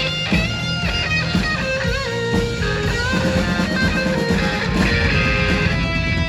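Heavy metal band playing live and loud: a distorted electric guitar lead with bent, sliding notes over bass and drums.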